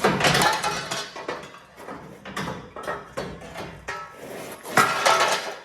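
Several heavy sledgehammer blows on rusted steel, ringing and clattering, as a rust-jacked beam plate on a semi-truck's frame is driven out; the loudest blow comes near the end.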